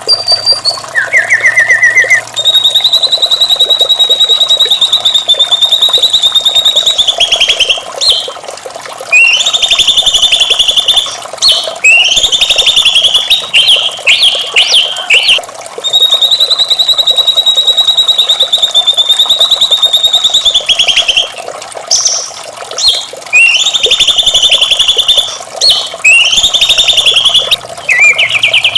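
White-rumped shama (murai batu) singing: long, rapid rattling trills held on one high pitch for several seconds at a time, broken by shorter phrases that rise and fall.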